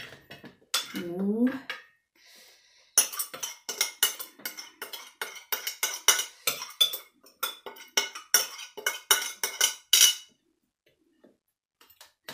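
A metal spoon scraping and clinking against a glass mixing bowl and a metal tray as salad is scooped out. It is a quick, uneven run of clinks and scrapes that starts about three seconds in and stops about ten seconds in.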